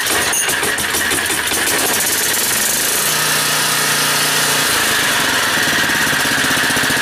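Generac 4000XL portable generator's engine catching right at the start, pull-started with the choke on, then running loud and steady.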